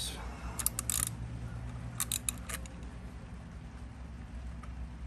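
Socket ratchet wrench clicking in two short runs of quick clicks, one under a second in and another about two seconds in, as a nut on the outboard's starter is worked.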